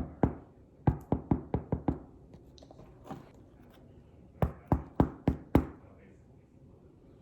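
Sharp knocks, as of knuckles rapping on something hollow, in quick runs. There are two near the start, a run of about six about a second in, a single knock, then about five more in a row.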